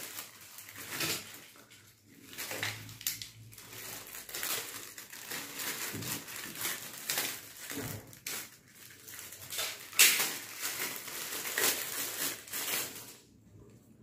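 Thin plastic packaging bag crinkling and crackling as it is handled and slit open with a utility knife, with irregular crackles and one sharper crack about two-thirds of the way through.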